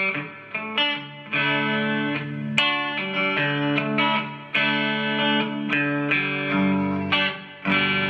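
2005 B.C. Rich Mockingbird electric guitar played clean on its neck (rhythm) pickup through a Vox amp, strumming open cowboy chords, a new chord struck about every second and left to ring. Real bright tone.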